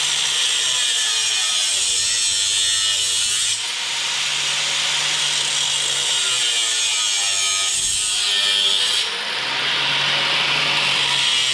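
Electric angle grinder cutting a notch in a piece of metal conduit clamped in a vise, its wheel grinding against the metal. It runs continuously, the motor note sagging and recovering as the wheel is pressed in and eased off, with brief dips about three and a half and nine seconds in.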